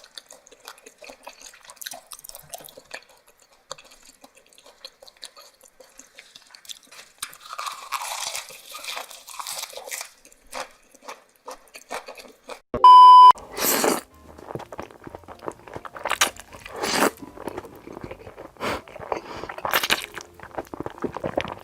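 Close-miked eating: soft, wet mouth clicks at first, then denser chewing and, in the second half, louder crunching bites and chewing. A short, loud electronic beep tone sounds once a little past the middle.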